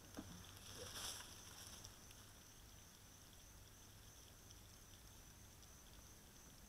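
Near silence: faint steady chirring of insects in the background, with a brief soft rustle about a second in.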